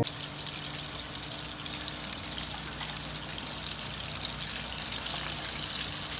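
Coated drumsticks frying in hot oil in a pan: a steady sizzle with fine crackling.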